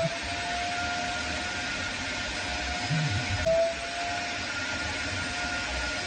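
Genesis Clean Master vacuum cleaner's motor running with a steady whine while its upholstery nozzle is drawn over a fabric couch cushion in wet cleaning. About three and a half seconds in, the sound briefly gets louder and the whine's pitch dips, then settles back.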